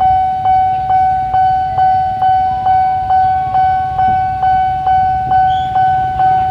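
Railway level-crossing alarm ringing: an electronic bell striking evenly about twice a second over a steady tone, the warning that a train is approaching the crossing.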